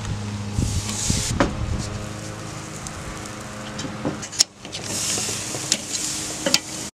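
Metal tongs clicking against a charcoal grill grate as marinated flank steaks are laid on and turned, with a light hissing sizzle in places and a low steady hum underneath.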